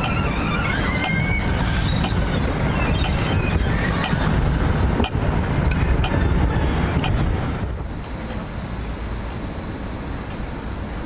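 Siemens ULF low-floor tram passing at street level, its wheels squealing in gliding high tones on curved track, with a few sharp clicks over rail joints or points. The rumble drops away about eight seconds in, leaving a steady high whine.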